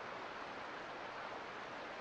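Mountain creek flowing: a steady, even rush of water.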